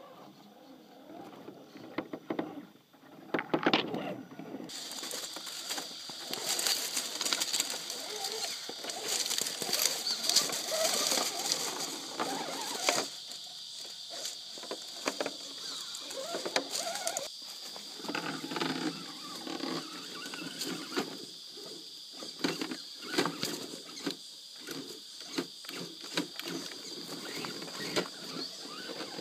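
Modified Axial SCX10 scale RC rock crawler on 2.2 Swamper tyres creeping over loose riverbed rocks: irregular clicks, knocks and crunches of tyres and stones. A steady high-pitched drone comes in about five seconds in and holds.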